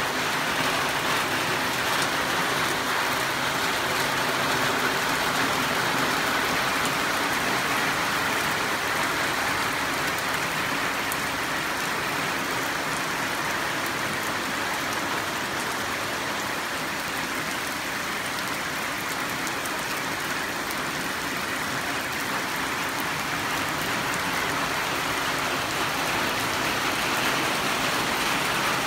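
Steady rain falling on garden foliage and ground, an even, unbroken hiss.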